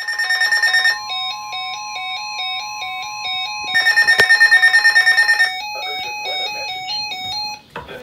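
Weather radio sounding its alert alarm for a severe thunderstorm warning: electronic tones stepping back and forth between two pitches, over a steady single tone for a few seconds, with two stretches of rapid beeping, about a second at the start and nearly two seconds in the middle.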